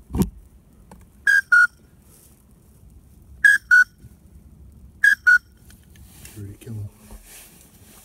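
Duck whistle call blown in three pairs of short, clear whistle notes about two seconds apart, the second note of each pair slightly lower: a drake pintail's whistle imitated to draw in passing pintails.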